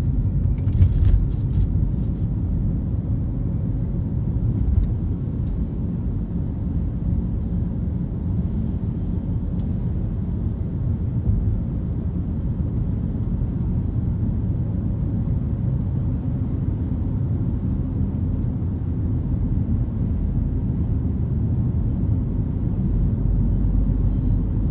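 Steady low rumble of a moving vehicle, even in level throughout.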